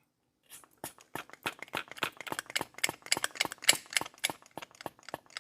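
Hand vacuum/pressure pump being worked to pressurize a two-stroke chainsaw's crankcase for a leak test. It makes a quick run of sharp clicks, several a second, starting about half a second in.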